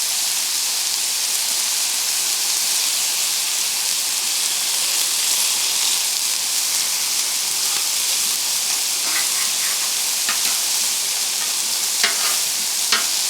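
Boneless chicken thighs and waffle fries sizzling steadily in olive oil on a Blackstone flat-top griddle, with a few short sharp ticks near the end.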